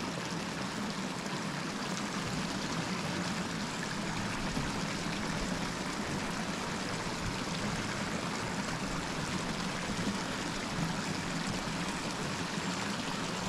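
Steady rush of running water, an even hiss that holds without change.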